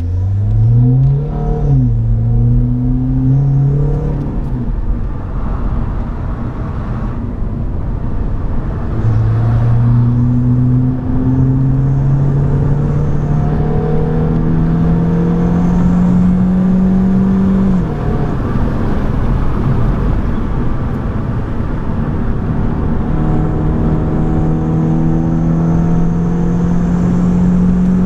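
BMW 118i's four-cylinder petrol engine, heard from inside the cabin, pulling hard through the gears of its manual gearbox. The pitch climbs and drops at each gear change, quickly in the first few seconds, then in long slow climbs with a drop about two-thirds of the way through. Tyre and road noise runs underneath.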